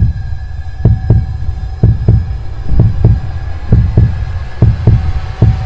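Background soundtrack of a low double thump, like a heartbeat, repeating a little faster than once a second over a faint held tone.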